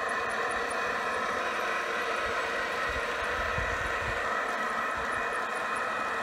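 G-scale model coal train with Dash 9 diesel locomotives running along the track: a steady, even mechanical hum. Low wind rumble on the microphone comes and goes a few seconds in.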